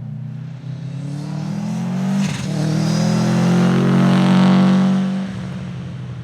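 Subaru Impreza 555 Group A rally car's turbocharged flat-four boxer engine running hard, its rumbling note building in loudness as the car comes past, with a brief crack a couple of seconds in, then dropping off abruptly about five seconds in.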